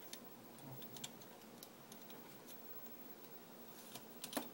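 Faint, scattered small clicks and ticks from a die-cast scale model excavator and its packing being handled, with a few louder clicks close together near the end.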